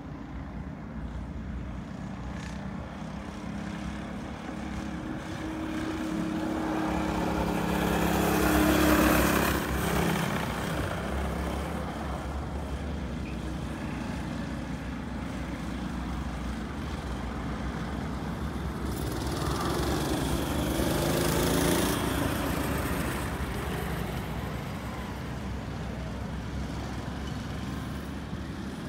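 Go-kart engines buzzing as karts lap the track, with two karts passing close, about a third of the way in and again about two thirds of the way in, each growing louder and then fading away.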